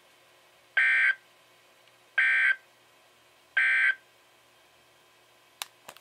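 S.A.M.E. weather alert radio playing the three short buzzy digital data bursts of the EAS end-of-message code, about a second and a half apart, which close the tornado watch broadcast. Two faint clicks near the end.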